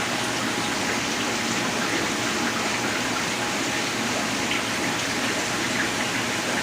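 Steady rush of running water from aquarium tank filtration and water circulation.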